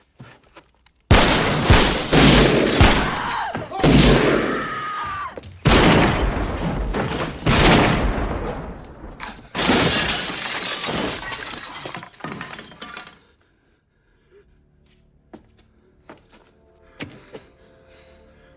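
Movie shootout sound effects: a run of gunshots mixed with glass shattering and breaking debris, with sharp loud hits starting about a second in and recurring for some twelve seconds, then dying down to faint scattered knocks.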